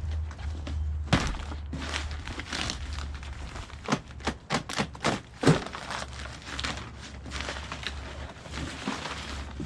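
Packaging of a pallet-fork shipment being torn open and handled: crinkling and tearing with a run of sharp knocks and thuds, loudest about four to five and a half seconds in, over a steady low hum.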